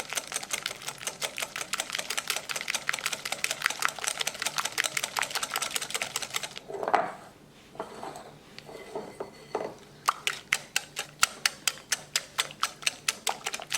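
Wire whisk beating an egg and cornstarch mixture in a bowl: a fast, even run of clicks as it strikes the bowl. It breaks off just past the middle for a few seconds with a few duller knocks, then starts again.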